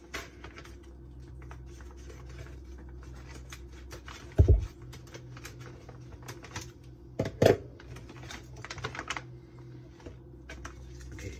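Crinkling and rustling of a food pouch being opened and handled, with many small crackles and two louder thumps, about four and seven seconds in.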